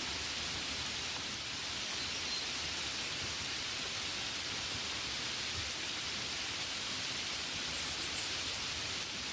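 Steady gentle rain falling on a window, an even hiss with faint scattered taps.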